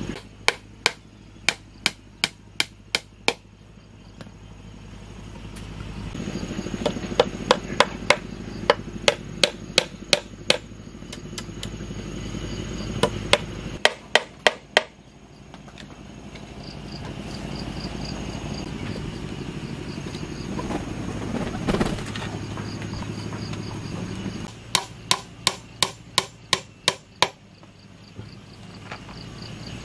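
A hammer driving nails into a small wooden box: several quick runs of sharp strikes, about three a second, with pauses of a few seconds between the runs.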